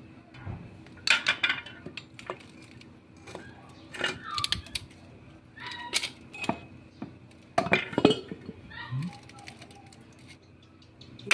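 Clinks and knocks of a rusty steel exhaust pipe and its cut-off flexible section being handled and pulled apart on a wooden block, coming in a few short clusters.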